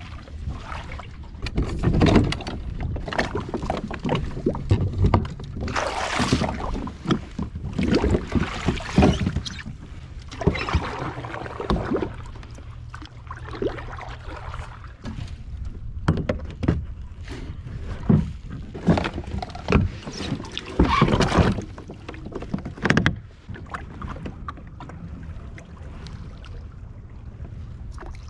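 Old Town Sportsman PDL 120 plastic pedal kayak being launched and pedalled: irregular knocks and bumps against the hull, with water sloshing. It goes quieter over the last few seconds.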